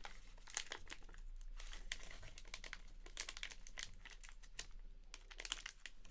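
Faint crinkling and rustling of plastic packaging, made up of many small irregular crackles, as the last card of the break is handled and unwrapped.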